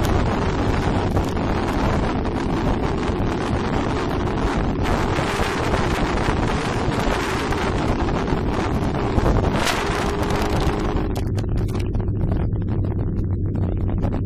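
Wind rushing over the microphone of a motorcycle at riding speed, with the motorcycle's engine running steadily underneath. About eleven seconds in the wind hiss drops away, leaving mostly the low, even engine hum.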